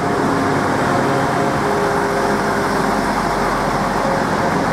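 Class 175 diesel multiple unit running past at close range: a steady drone of its diesel engines over the rumble of wheels on the rails, with a few steady whining tones.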